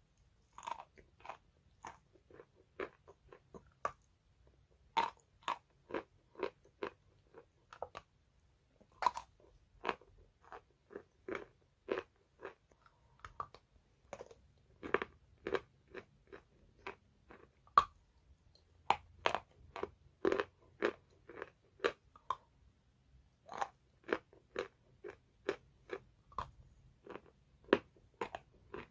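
Wet chalk being bitten and chewed close to the microphone: a run of short, crisp crunches about two to three a second, with a few brief pauses between bites.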